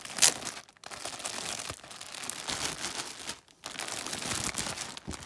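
Clear plastic wrapping on a folded baby blanket crinkling and rustling as hands pull it open, in a run of bursts with short pauses and the loudest crackle just after the start.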